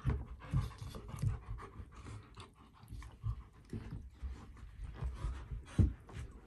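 An Alaskan malamute and a golden retriever puppy play-fighting: heavy dog panting with scuffling and irregular thumps of paws and bodies on the carpet and bed, one sharper thump about a second before the end.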